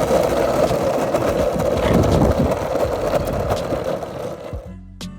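Longboard's soft 78A Plow King urethane wheels rolling over rough, bumpy asphalt: a steady, loud rumble that fades out near the end, where music comes in.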